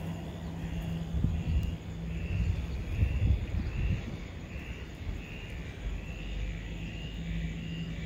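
Outdoor ambience over a flooded field: wind rumbling and buffeting on the microphone, under a low steady hum. A faint high chirping call repeats about every half second throughout.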